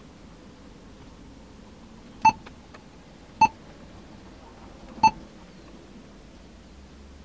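Touchscreen of an Android car head unit giving three short key-press beeps, each at the same pitch, spaced about a second or so apart.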